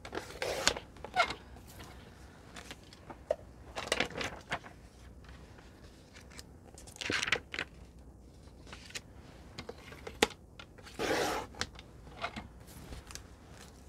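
A sheet of vellum being handled and positioned on a plastic paper trimmer: light rustles and clicks, with four short scraping swishes spread through, the longest about eleven seconds in.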